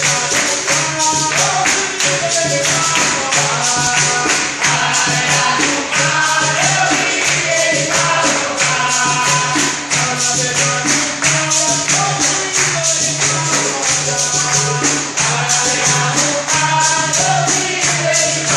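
Capoeira roda music: a circle of people clapping a steady rhythm with a jingling pandeiro tambourine while the group sings.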